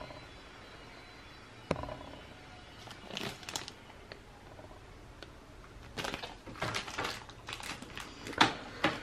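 Handling of packaged motherboard accessories and cables: light rustling with scattered clicks and taps, busier after about six seconds.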